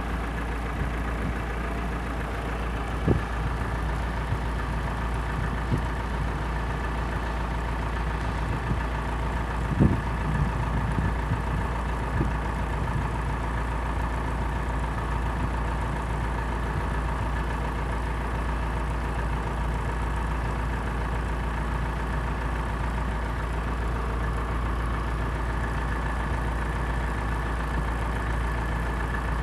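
A steady mechanical hum over a low rumble, with a few faint knocks.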